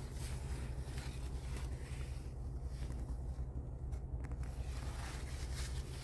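A steady low rumble, with faint crackling rustles of eggplant leaves and stems as a hand moves through the plant.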